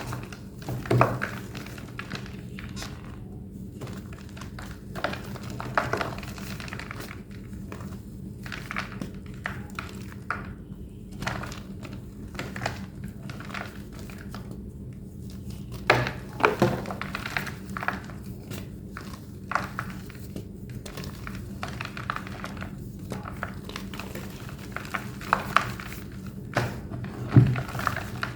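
A thick block of plain white homemade gym chalk being crushed and squeezed by hand, giving irregular squeaky crunches and cracks. The loudest come about a second in, around the middle, and near the end, over a steady low hum.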